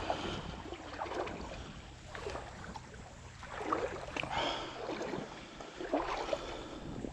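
Creek water sloshing and splashing in uneven strokes, as of legs wading through a shallow stream.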